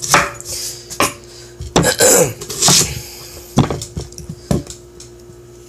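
Kitchen knife cutting an onion on a wooden cutting board: irregular sharp knocks of the blade hitting the board, about once a second, with rustling as the onion is handled.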